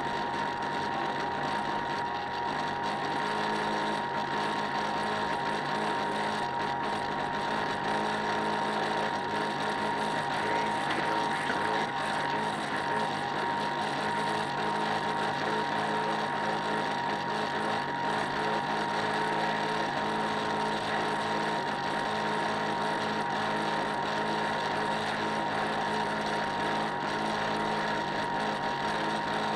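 Model boat's motor running steadily with a constant whine.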